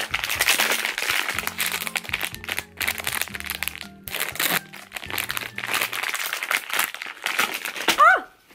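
Blind-box packaging bag crinkling and tearing as it is ripped open by hand, over background music.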